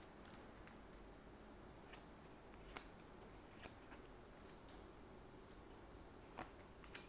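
A few faint swishes of trading cards sliding against each other as a freshly opened booster pack is gone through card by card.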